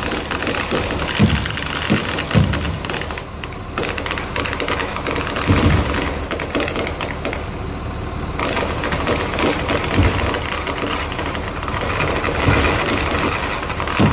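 Kerala temple-festival fireworks (vedikettu) going off: a dense, continuous crackle of firecrackers, with a deep boom every few seconds.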